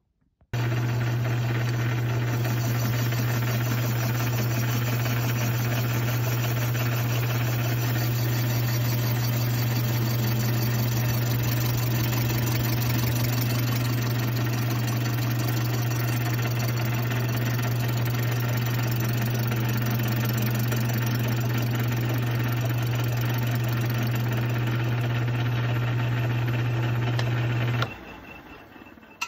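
Metal lathe running under power with a strong steady hum, turning a chainsaw cylinder on a mandrel while cutting down its base extension. It starts suddenly about half a second in and is switched off near the end, fading as it winds down.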